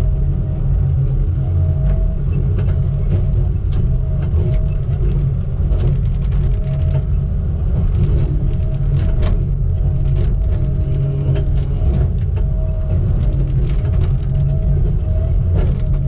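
Heavy logging machine's diesel engine running steadily under a low rumble, with scattered clanks and knocks throughout.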